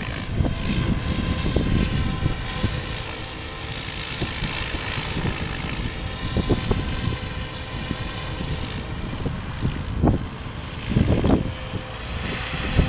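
Radio-controlled F3C aerobatic helicopter flying, its rotor and motor giving a steady hum, while strong gusting wind buffets the phone's microphone in low rumbling blasts, the heaviest about ten and eleven seconds in.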